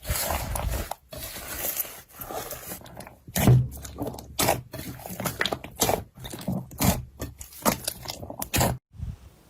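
Slime being squeezed and pressed by hand, making irregular squishy clicks and crackles, several a second; the sound drops away just before the end.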